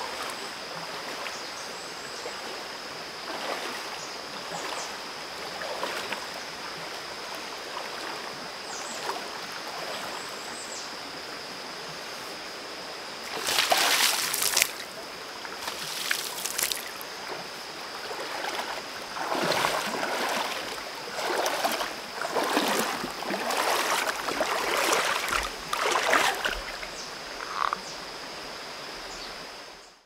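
Shallow rocky mountain stream flowing steadily, with a person wading through it. About 13 seconds in, loud splashes start as water is flung up around him, coming again a few seconds later and then in a run of repeated splashes. The sound cuts off at the very end.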